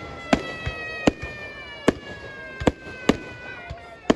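Fireworks display: about seven sharp shell bursts at irregular intervals, over a whistling tone that slowly falls in pitch.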